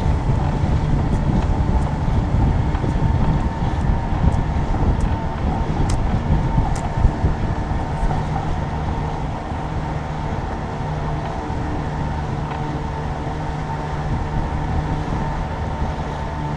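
A boat's motor running steadily, with a constant hum and noise under it.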